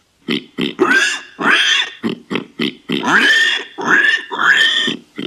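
Warthog grunting and squealing: a quick run of short grunts, then several longer, higher calls that bend up and down in pitch.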